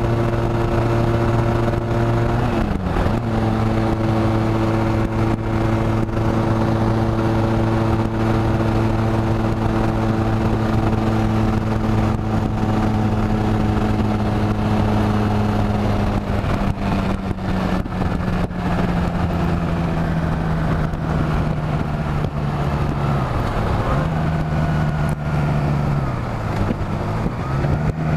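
Honda Rebel 250 motorcycle engine running at a steady cruise under heavy wind noise, dropping in pitch with an upshift about two and a half seconds in. In the second half the revs fall as the bike slows, with two downshifts near the end, each a brief dip and then a higher, steady pitch.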